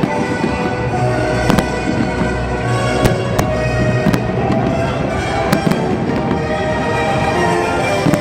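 Fireworks bursting in the sky with sharp bangs, about half a dozen at irregular intervals, over steady loud music.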